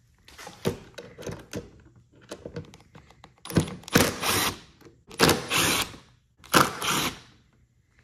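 Milwaukee cordless impact driver with a Torx 25 bit hammering out the bolts of a snowmobile's plastic dash panel in three short bursts, each under a second, about a second apart. A few light clicks and taps come before them.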